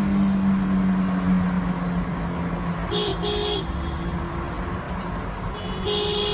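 Car horns honking in moving highway traffic: two short blasts about three seconds in and another held blast near the end, sounded at a car driving head-on against the traffic. Under them runs steady road noise, with a low steady hum over the first couple of seconds.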